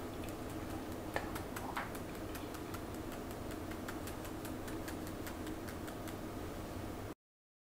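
Small handled mesh strainer being tapped to sift powdered sugar, giving a steady run of light ticks, about four or five a second, over a faint steady hum. It cuts off suddenly near the end.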